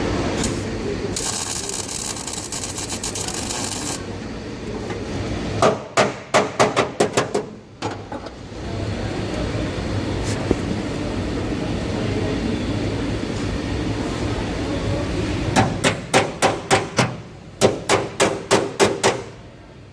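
Three quick runs of hammer blows, each six to nine strikes at several a second, over steady background noise. A hiss sounds for a few seconds near the start.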